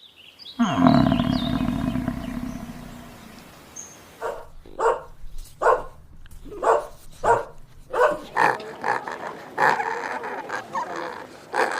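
An animal's long roar that falls in pitch and dies away. It is followed by a run of short, repeated barking calls, about one or two a second.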